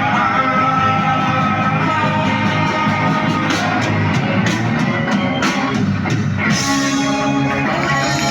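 A rock band playing live, with electric guitar over a drum kit and repeated cymbal hits.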